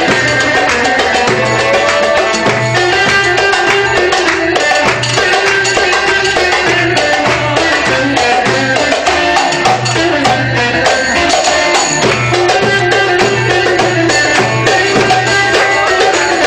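Live Turkish fasıl ensemble playing an instrumental dance tune: electric saz and clarinet carry the melody over darbuka and tef (frame drum with jingles), with a steady beat of low drum strokes.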